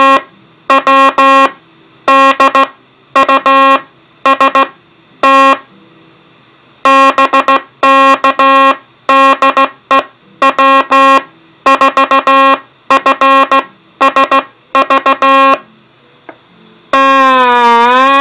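Code practice oscillator sounding a buzzy tone keyed on and off in Morse code dots and dashes. Near the end the key is held down and the tone runs on steadily, dipping slightly and then starting to rise in pitch.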